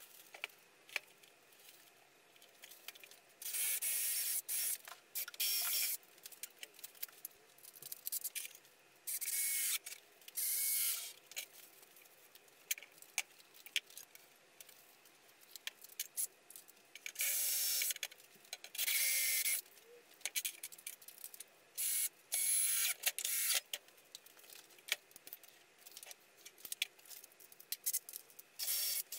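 A cloth being rubbed over a softwood timber frame in repeated hissy strokes of one to two seconds each, with scattered clicks and knocks of handling between them.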